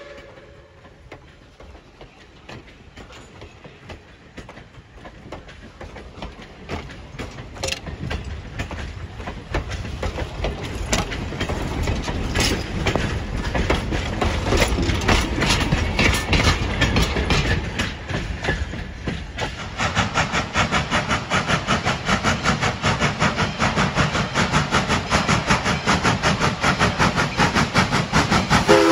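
A passenger train rolling past on the rails, its wheels clicking and clattering over the track and growing steadily louder. For the last several seconds it becomes a fast, even clatter.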